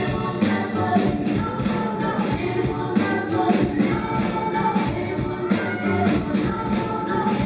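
A live rock band playing an instrumental stretch of the song, with drums keeping a steady beat under the other instruments.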